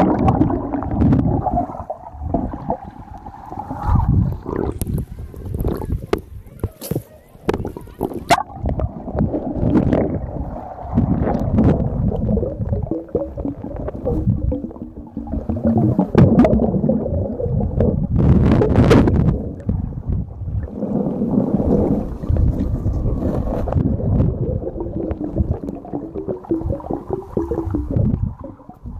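Muffled underwater churning and gurgling as a snorkeler dives under a lake surface, with air bubbles rushing past the microphone and scattered sharp knocks.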